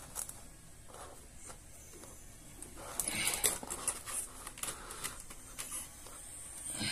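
Plastic bezel of a laptop screen being worked loose by hand: scattered small clicks and crackles of plastic as it is pried off the panel, with a denser run of clicks about three seconds in and a few single clicks after.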